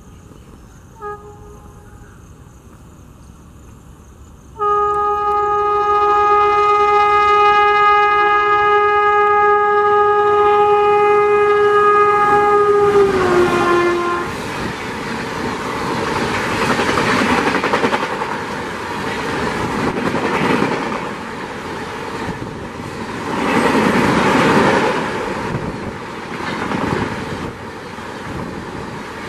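Indian Railways electric locomotive horn: a short toot about a second in, then one long loud blast from about five seconds in whose pitch drops as the locomotive passes. After it, the coaches of the express rush past at speed, a loud rumble and clatter that swells and eases several times.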